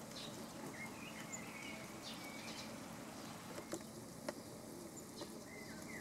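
Small songbirds calling in short, warbling chirps, a run of them in the first couple of seconds and another near the end, with two sharp clicks in between.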